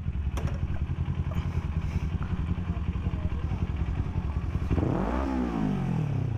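Motorcycle engine idling steadily, then revving up and back down once about five seconds in.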